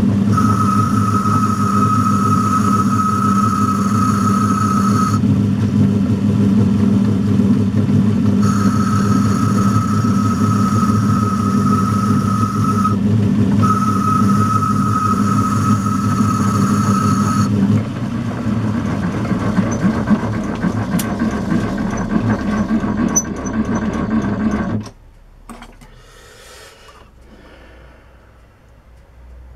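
A 100-year-old metal lathe running while boring out a spinning workpiece: a steady motor hum with a high whine that comes and goes in stretches. The whine ends about 18 seconds in, and the lathe stops about 25 seconds in.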